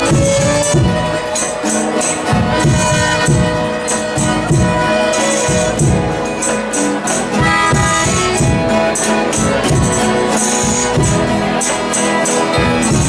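Folia de Reis band playing an instrumental passage: tambourine jingles and regular drum beats over steady held notes.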